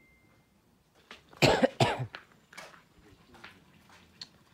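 A person coughing twice in quick succession, loud and close, about a second and a half in, followed by a few fainter short sounds.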